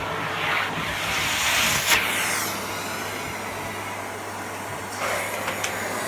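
Vacuum cleaner running with its nozzle on carpet, the whoosh of the suction rising and falling as the head is pushed back and forth. A brief sharp click about two seconds in.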